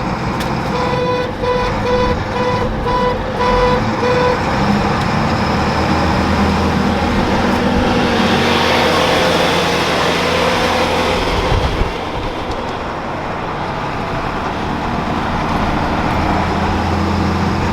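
Truck driving in traffic: steady engine and road noise, louder for a few seconds about halfway through. In the first few seconds a run of about six short, evenly spaced beeps sounds.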